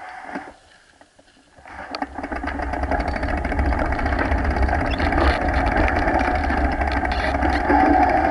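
Wind buffeting the microphone of a camera on a moving mountain bike, mixed with tyre noise on the path. It drops almost quiet for a moment near the start, then builds into a steady rumble as the bike gets going and holds.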